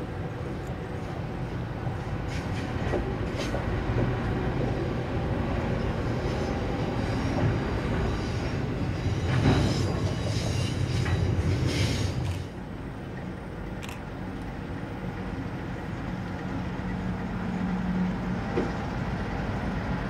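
A container freight train hauled by Pacific National NR class diesel-electric locomotives (GE Cv40-9i) rolling past, with a steady rumble and occasional sharp wheel clicks on the rail. It is loudest about halfway through, then drops suddenly about two-thirds of the way in and runs on quieter as the wagons go by.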